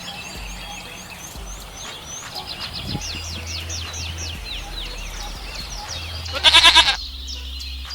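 Small birds chirping in quick falling notes, and about six seconds in a goat bleats once, loud and wavering.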